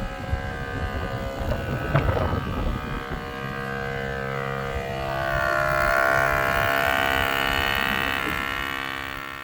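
Wind buffeting the microphone, gusting for the first couple of seconds, under closing music of sustained chords that swells about halfway through and then fades out at the end.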